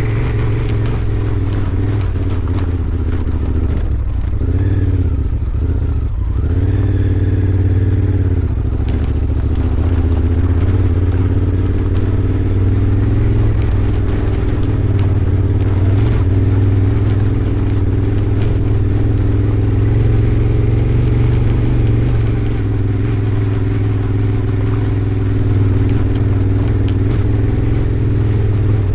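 Honda Africa Twin 1100's parallel-twin engine running at low to moderate revs while riding, with the pitch dropping and climbing a few times about four to eight seconds in as the throttle is closed and reopened, then running steadily.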